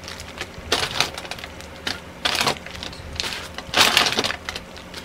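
Plastic packaging crinkling and rustling in several short bursts as packs of makeup puffs in clear plastic bags are handled and pulled from a plastic mailer bag. The loudest crinkle comes near the end.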